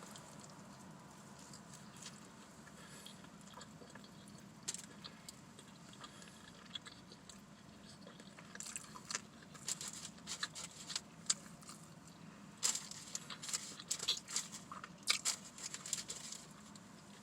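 Close-up mouth sounds of chewing and biting a sausage egg McMuffin: a quiet start, then a run of short wet clicks and smacks from about eight seconds in. A faint steady hum of traffic lies underneath.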